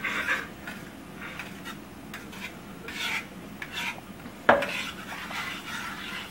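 A metal fork stirring and scraping a runny egg-yolk and chicken-stock mixture around a stainless steel frying pan. The tines scrape the pan in short, irregular strokes, with one louder scrape about four and a half seconds in.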